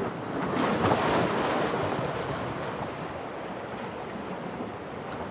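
Sea water washing against the rocks of a sea wall: a soft rush that swells about a second in and slowly dies away.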